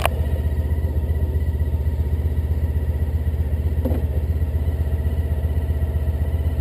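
Honda ST1300's V4 engine idling steadily with an even low pulse while the motorcycle stands still. A sharp click comes right at the start, and a short knock comes about four seconds in.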